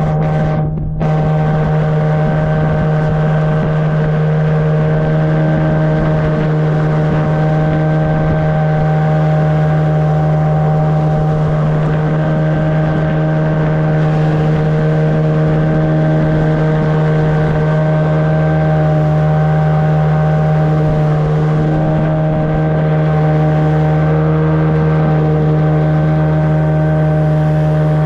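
Yamaha water-jet outboard motor running steadily at cruising speed, a constant pitched drone with a brief dip about a second in.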